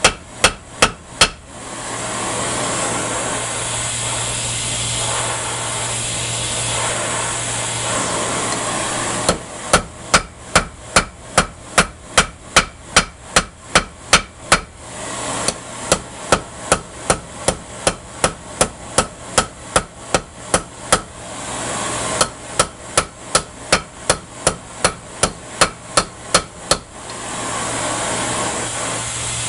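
Hand hammer striking a hot bronze bar on a steel anvil in even runs of light, controlled blows, about two to three a second. A few blows open it, then a steady rushing noise holds for several seconds. The blows resume for most of the rest, with two short breaks, and the rushing noise returns near the end.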